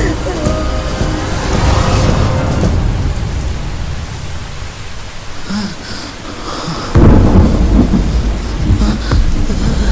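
Rain falling steadily with thunder rumbling; a sudden loud thunderclap breaks about seven seconds in and rumbles on.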